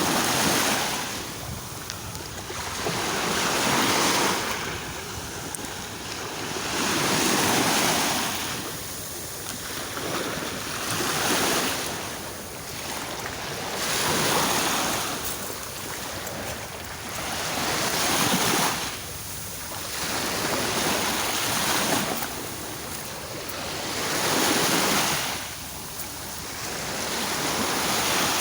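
Sea waves surging and washing in, a new wave swelling and falling away about every three to four seconds.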